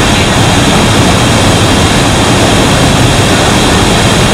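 Iguazu Falls in flood, heard close up: a loud, steady rush of falling water.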